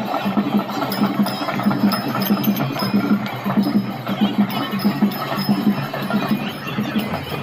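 Dhol drum beating a fast, even rhythm of about four to five strokes a second, with shehnai playing over it and bright metallic jingling.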